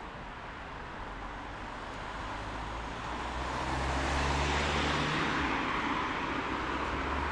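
A car passing on a wet city street: engine hum and tyre hiss swell to a peak about four seconds in, then ease off as another vehicle approaches near the end.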